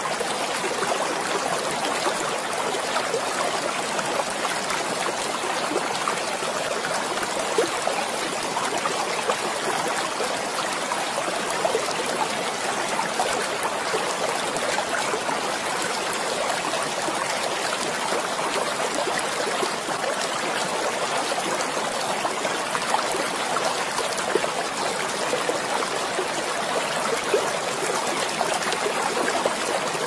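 Running water in a stream, babbling steadily without a break.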